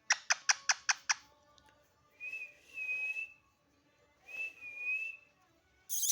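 A quick run of about six sharp chirps, then two long, steady whistles, each about a second long, with a short harsh burst near the end.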